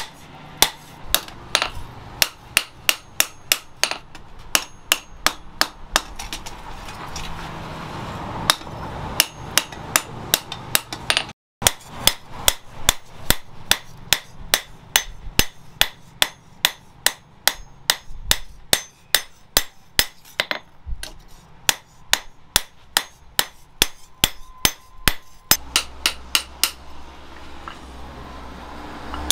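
Hand hammer striking a steel sickle blade, forged from a chainsaw bar, on a steel post anvil: a steady run of sharp metallic blows about two to three a second. The blows break off briefly about eleven seconds in.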